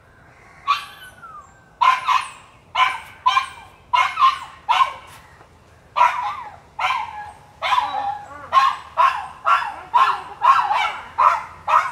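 A dog barking repeatedly in short barks, about two a second, starting just under a second in.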